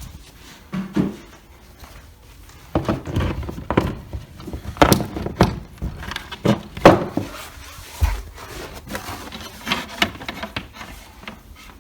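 Hands handling PC parts and cables, with irregular knocks, clunks and rubbing as things are moved and set down against wood. A few soft knocks come first, then a busy run of them from about three seconds in.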